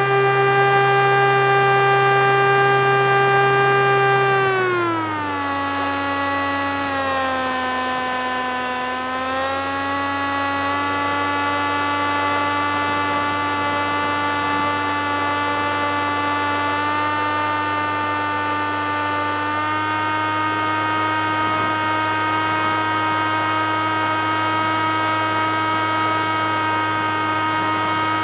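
Model seaplane's motor and propeller heard from on board: a steady whine that glides down in pitch about five seconds in, as the throttle comes back, then holds, rising slightly near ten and twenty seconds.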